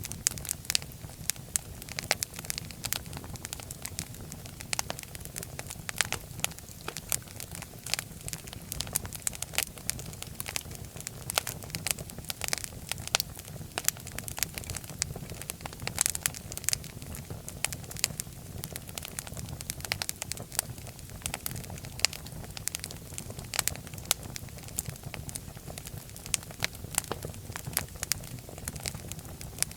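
Fireplace fire crackling: frequent sharp, irregular pops and snaps over a steady low rumble of the flames.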